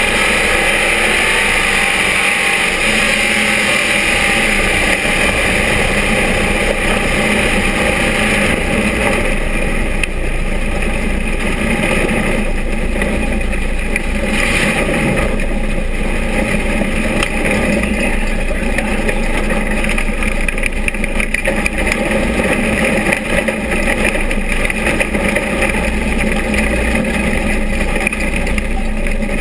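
Vintage dirt-track stock car's engine running hard at racing speed, heard loud from inside the cockpit, with a dense rushing noise over it. The engine pitch rises and falls a little in the first few seconds, then holds steady.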